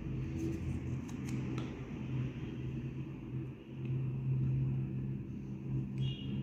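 A steady low hum or rumble, with a few faint ticks and rustles of thin electrical wire and tape being handled in the first second or so.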